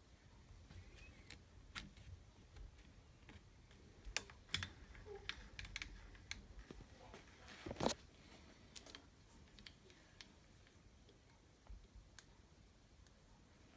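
Scattered light clicks and taps at an irregular pace, with a cluster about four to six seconds in and one louder knock about eight seconds in.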